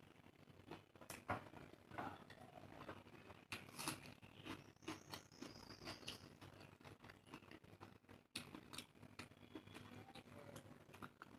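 Close-miked eating sounds: soft chewing with scattered wet mouth clicks and small crunches, irregular and quiet.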